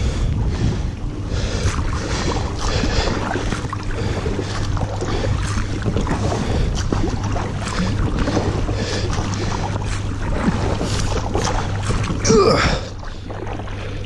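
Kayak paddle strokes dipping and splashing in river water, a splash every half second to a second, over a steady low rumble of wind on the microphone. Near the end comes one brief, louder wavering high sound.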